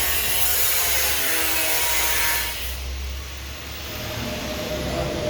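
A workshop tool runs with a harsh hissing rasp for about three seconds, then cuts off, over a steady low hum.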